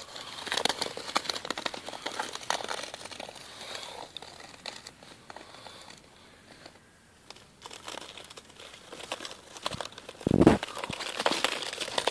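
Snow crunching and crackling in irregular bursts, with a louder muffled thump about ten seconds in.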